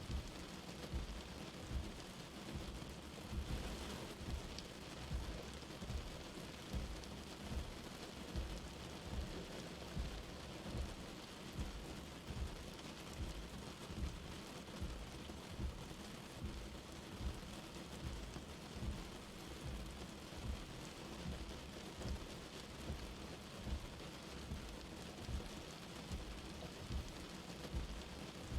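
Light rain falling, a steady soft hiss of rain on surfaces, with soft low thumps recurring about once a second.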